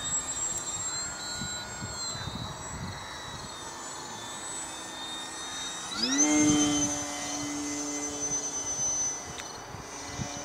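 Electric brushless motor and propeller of a HobbyKing Tundra RC plane flying past. It whines faintly at first, then is throttled up about six seconds in to a louder, higher, steady buzzing whine as the plane climbs away.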